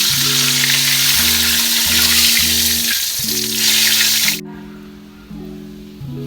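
Floured macaroni frying in hot oil: a loud, steady sizzle that cuts off suddenly about four seconds in. Background music with a simple melody plays throughout.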